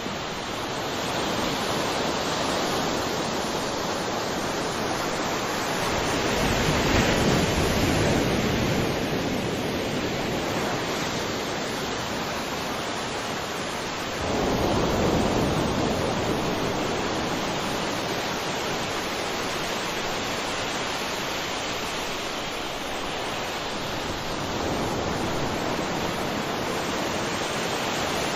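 Sea waves breaking and washing on the shore in a steady rush of surf, with bigger waves swelling up about a quarter and half of the way in.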